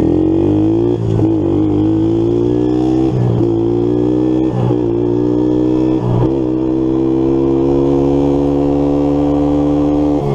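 1984 Kawasaki KLT110 three-wheeler's 110 cc single-cylinder four-stroke engine under way, its note dipping briefly four times as the rider shifts up through the gears, then running at a steady pitch at speed.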